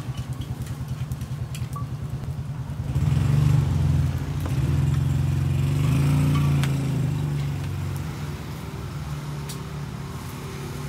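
A motor vehicle engine running close by with a low, rapid putter. It grows louder about three seconds in and fades away again after about seven seconds, as if the vehicle passes the stall.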